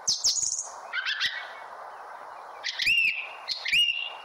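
Birds calling: a run of short, rising whistled calls, the last three hooking up and holding a steady note for about half a second each. Light clicks of a knife and spoon against a steel mixer jar come early on, over a steady background hiss.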